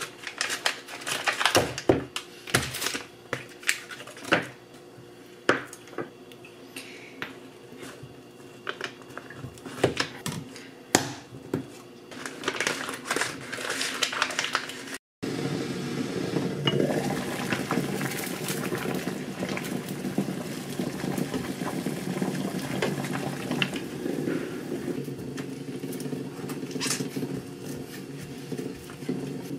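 A knife chopping through a block of cheese onto a wooden cutting board in separate sharp knocks, with the foil wrapper crinkling near the middle. After a cut, a metal potato masher works cooked potato and egg in a glass bowl in a steady run of squishing and scraping with occasional clinks.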